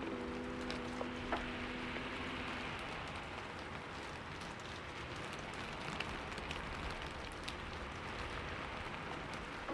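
Fire crackling: a steady hiss with scattered small pops, over a low steady rumble of a cat purring. A piano chord rings and fades out over the first two seconds.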